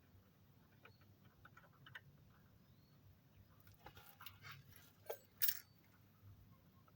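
Faint clicks and a few light metallic clinks of small parts and hand tools being handled, with two louder clinks a little after five seconds in.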